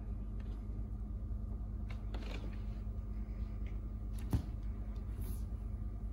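Wooden long pole swishing faintly as it is swung through a Wing Chun form, with one sharp knock about four seconds in, over a steady low hum.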